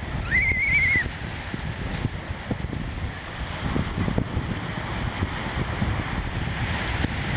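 Wind buffeting the microphone over the wash of surf on a sandy beach, with a brief high wavering tone about half a second in.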